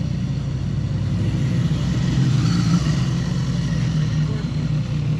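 A car engine running with a steady low rumble, swelling a little about two to three seconds in.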